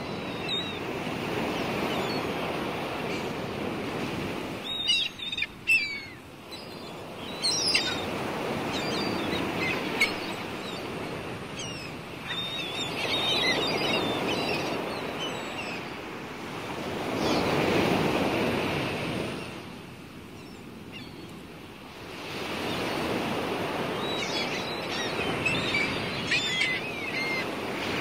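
Sea waves washing onto the shore, swelling and easing every few seconds, with small birds chirping over them at times.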